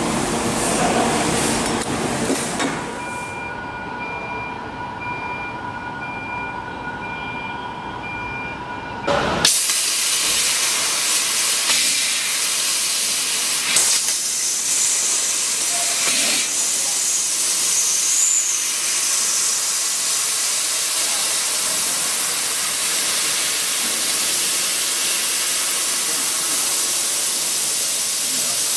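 CNC laser cutter cutting 18 mm brass plate: the assist-gas jet blowing through the cut makes a loud, steady hiss. It starts suddenly about a third of the way in, after a quieter stretch of machine hum with a few steady tones.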